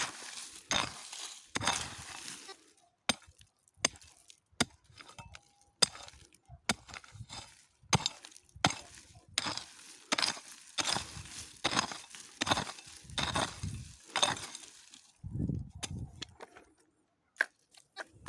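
Digging in stony ground: a tool strikes and scrapes irregularly, about once or twice a second, with a low thump or rumble near the end.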